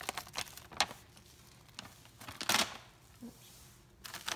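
Plastic Pupperoni treat bag crinkling as it is handled, a handful of short crackles with quiet gaps between, the longest about two and a half seconds in.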